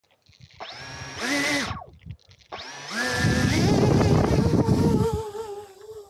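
Twin brushless motors with propellers on a hand-launched FPV flying wing: a short spin-up with a rising whine that cuts off after about a second, then a second spin-up to full throttle with a rush of noise, settling into a lower, wavering steady whine near the end as the wing flies off.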